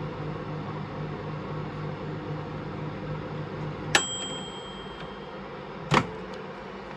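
Microwave oven running with a steady, slightly pulsing hum that stops about four seconds in with a click and a short ringing ding as the heating cycle ends. A second sharp click follows about two seconds later.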